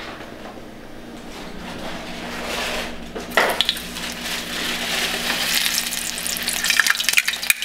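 Hot vegetable oil sizzling in a frying pan as a small piece of saltine-crumb-breaded walleye fillet is dropped in with metal tongs; the sizzle starts about three seconds in and keeps up with crackles.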